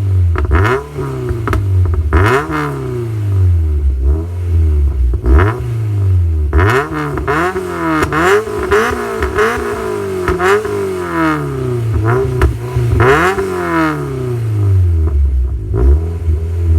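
Four-cylinder engine of a Mazda MX-5 (NC) with a BBR de-catted manifold, 200-cell cat centre pipe and Cobra race back box, revved in a dozen or so quick blips while standing, quite loud, with crackle on the overrun, then settling back to a steady idle near the end.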